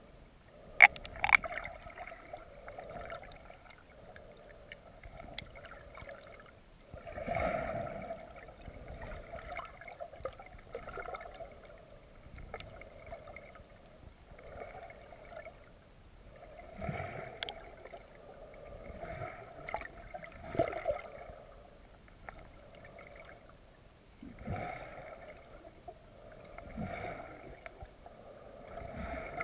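Muffled underwater sound of river water moving past a submerged camera housing, swelling and fading every few seconds, with two sharp knocks about a second in.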